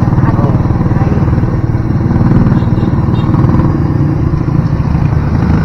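Motorcycle engine of a motorcycle-and-sidecar tricycle running steadily under way, heard from inside the sidecar: a loud, low, fast-pulsing engine note.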